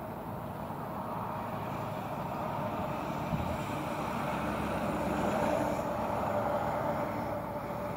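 PKP class ED72 electric multiple unit approaching: steady running noise from its motors and wheels on the rails with a faint steady whine, growing louder to a peak about five to six seconds in.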